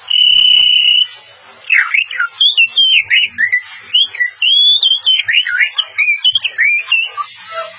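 A boy imitating a canary's song by mouth: one high held whistle for about a second, then a fast warble of rising and falling chirps.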